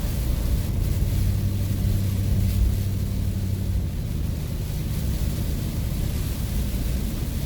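Ford van driving at highway speed in heavy rain: a steady low engine and road drone under a constant hiss of rain and wet-tyre spray, heard from inside the cab. The low drone eases about four seconds in.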